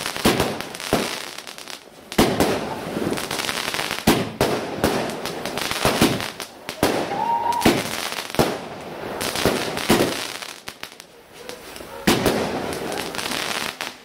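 Aerial fireworks bursting: a rapid run of sharp bangs, roughly one every second or two, with a dense crackle and hiss between them. There is a short lull about ten seconds in before the bangs pick up again.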